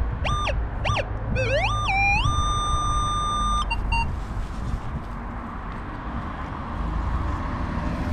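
Minelab Vanquish metal detector giving target tones as the coil swings over a buried metal object: several quick tones that rise and fall, then a tone that slides up in pitch and holds steady for about a second and a half. A few short high beeps follow about four seconds in.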